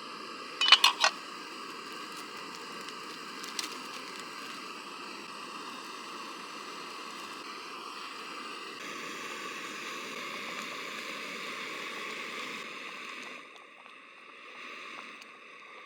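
Pot of stew boiling over a campfire: a steady bubbling hiss, with a quick run of sharp clicks about a second in and a single click a couple of seconds later. The boiling gets quieter near the end.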